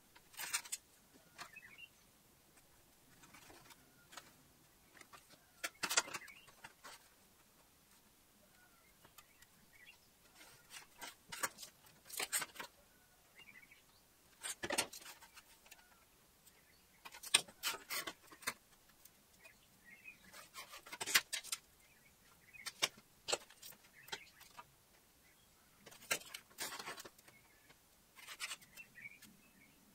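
A steel rule sliding and clinking on a sheet of aluminium while a pencil scratches lines along it: scattered short scrapes and taps, a few seconds apart.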